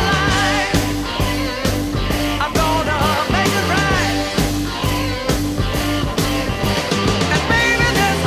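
Hard rock recording with electric guitar, bass and drums playing at a steady beat, with wavering, bending pitched lines over the band.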